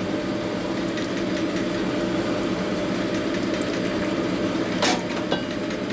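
Honing machine running steadily with a layered mechanical hum, a sharp click about five seconds in.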